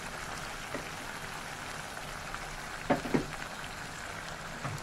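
Tomato and garlic sauce simmering and sizzling in a non-stick frying pan, a steady crackling hiss. Two short, louder pops come about three seconds in.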